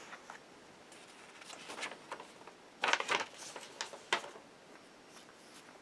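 Sheets of paper being handled and rustling, with a few short rustles: a louder one about three seconds in and another about a second later.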